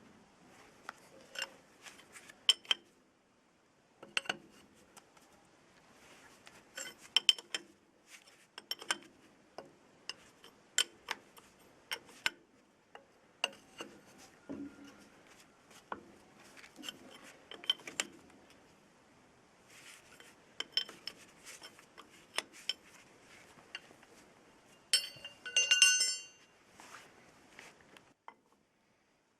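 Metal parts and hand tools clinking and knocking in scattered, irregular taps, with a louder ringing metallic rattle near the end.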